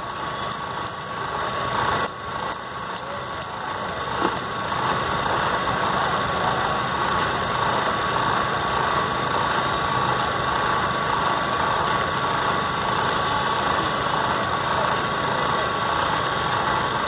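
A steady hum with a constant high tone, of the kind a running engine or machine makes. A few light clicks come in the first few seconds, and faint voices sit in the background.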